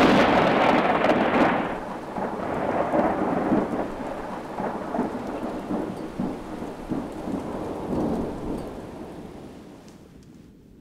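Thunder: a loud crack at the very start, then a long rolling rumble that swells a few times and slowly fades away.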